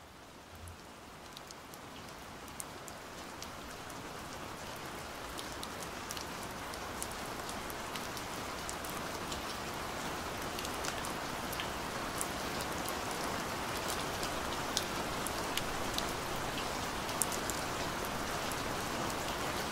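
Heavy rain falling: a steady hiss dotted with many sharp drop ticks, growing louder over the first several seconds.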